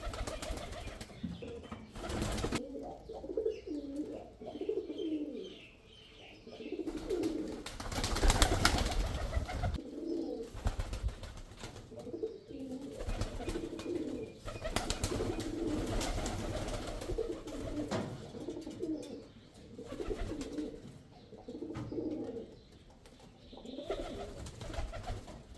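Male pigeon cooing, a run of low, warbling coos repeated over and over, with a few loud rustling or flapping noises among them.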